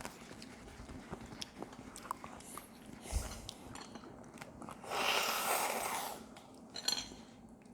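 Eating at the table: chewing and biting with scattered light clicks of cutlery on dishes, and a louder noisy sound of about a second and a half starting around five seconds in.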